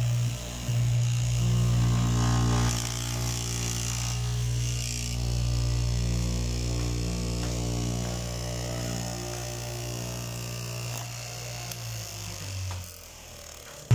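Electric straight-knife cloth cutting machine running, its vertical blade cutting through a stack of fabric layers with a steady buzzing hum. About a second before the end the hum drops in pitch and fades as the motor winds down.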